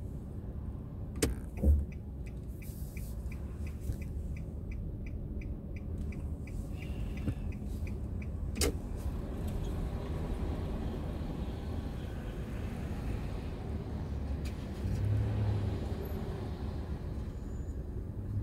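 Car driving, heard from inside: a steady low rumble of engine and road noise. For about five seconds a rapid, regular ticking runs over it. Sharp knocks come about a second in, a louder one just under two seconds in, and another about nine seconds in, and the low rumble swells briefly near the end.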